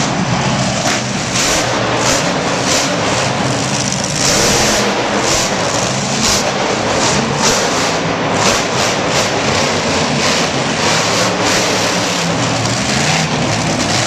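Loud engines of motorsport vehicles running and revving together at an arena show, a continuous rough drone with frequent short crackles.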